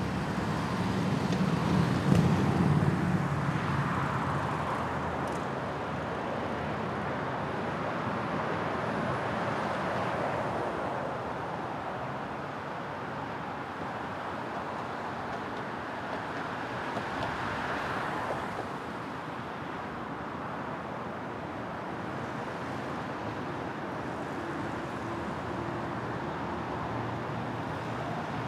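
Escort motor vehicles, a lead SUV and police motorcycles, passing on an expressway over steady traffic noise. The loudest pass is about two seconds in, with a smaller swell near eighteen seconds.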